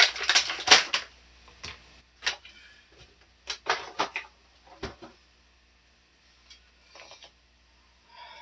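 Plastic action figure and its packaging being handled: a dense run of sharp clicks and crinkles in the first second, then scattered clicks and taps that thin out after about five seconds.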